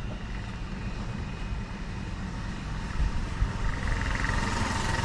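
Low outdoor rumble, with a distant engine's whine that grows from about three and a half seconds in.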